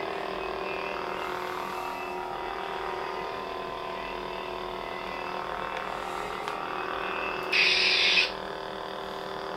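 Two toy lightsabers, a Hasbro FFX and an Ultra Edge, idling with a steady electronic hum from their speakers, made of several layered tones. About three-quarters of the way through, a short, louder hissing sound effect plays for under a second.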